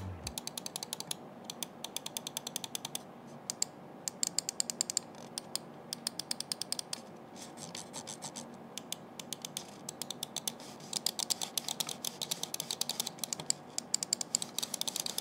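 Attack Shark X3 wireless gaming mouse being clicked rapidly, its Kailh Black Mamba micro switches giving crisp clicks in quick runs of several a second, broken by short pauses.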